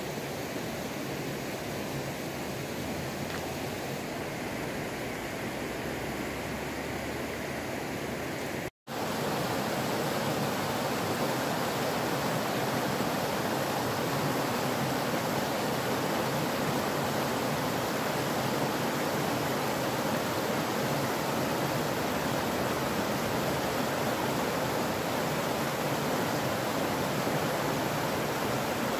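Shallow rocky river rushing and splashing over stones in small rapids, a steady noise of running water. It drops out for a moment about nine seconds in and comes back slightly louder.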